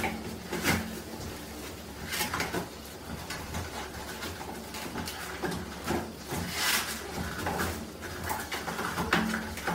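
Toilet paper rustling and tearing in short bursts, roughly once or twice a second, as a small terrier tugs and chews at the roll on its wall holder. A low hum runs underneath.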